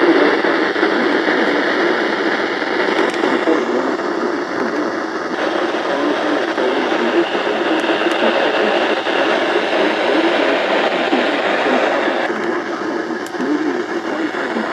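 Weather radio receiver tuned to a weak NOAA Weather Radio signal: loud, steady static hiss with the broadcast barely coming through. The static changes character about five seconds in and again near the end.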